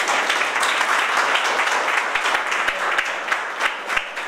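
Audience applauding: many hands clapping together, a dense even patter with a few sharper single claps standing out.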